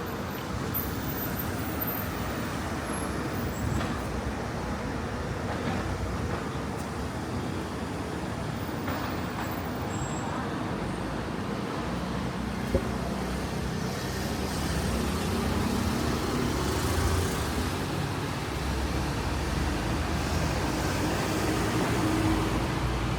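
City street traffic: motor vehicles running and passing, with a heavier engine rumble growing louder over the second half. A single sharp tap about halfway.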